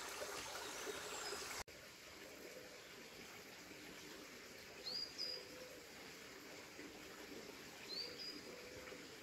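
Quiet outdoor ambience in which a small bird gives a short rising chirp twice, about three seconds apart. The background hiss drops suddenly about a second and a half in.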